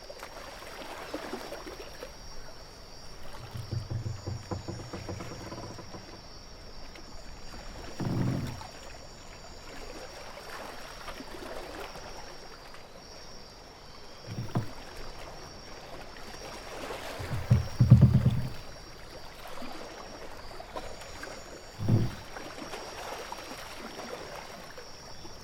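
Layered ambience of lapping sea water under a steady high hiss, broken by about five short, low creaks or thumps, the loudest about eighteen seconds in.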